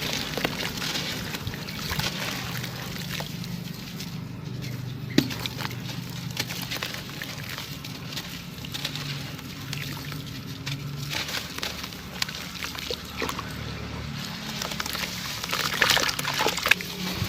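Chunks of sand cement being crushed and crumbled, a dense gritty crackling with a sharper crack about five seconds in and a burst of louder cracks near the end.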